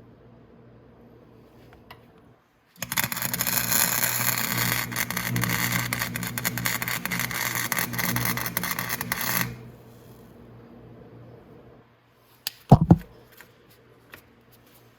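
Wire-feed (MIG) welder arc crackling steadily for about six seconds while welding a kickstand back onto a motorcycle frame. It stops suddenly, and a couple of sharp metal clanks follow near the end.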